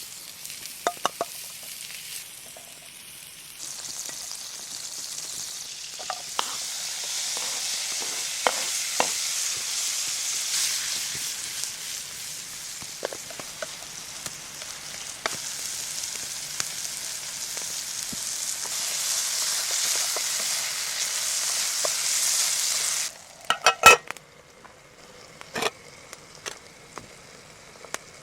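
Food sizzling in a hot cast iron pan, with a few light clicks of a utensil; the sizzle grows louder a few seconds in and stops suddenly near the end, followed by a short clatter of knocks.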